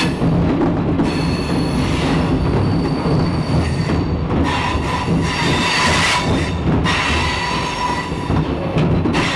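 A train passing on the rails: a steady, loud rumble, with the metal wheels squealing in high tones that come and go, loudest past the middle.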